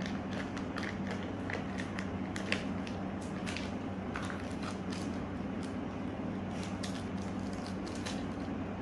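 Plastic zip bag of modelling clay crinkling as it is handled and closed: a string of short crinkles and rustles, over a steady low hum.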